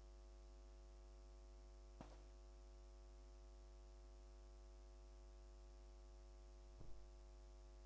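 Near silence: a faint steady electrical hum, with two small faint clicks, one about two seconds in and one near the end.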